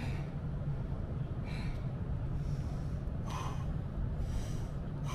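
A man breathing hard, with forceful hissing exhales about once a second, winded from a continuous bodyweight workout of burpees, push-ups and squats. A steady low rumble runs underneath.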